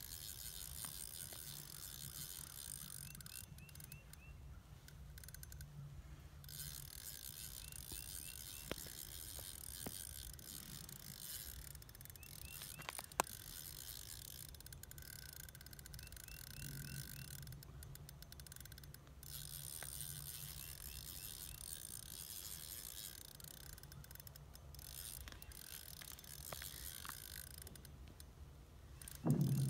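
Fishing reel being cranked on an ice rod to bring up a hooked lake trout: a whirring of the reel's gears in stretches, broken by several short pauses, with a few sharp clicks. A short louder low thump comes near the end.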